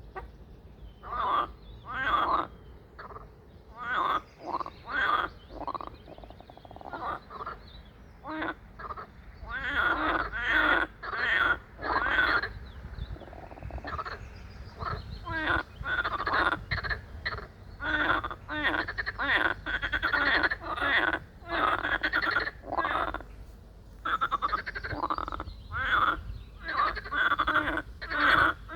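A chorus of frogs croaking: many short, pulsed calls of about half a second each, repeating and often overlapping, over a low steady rumble.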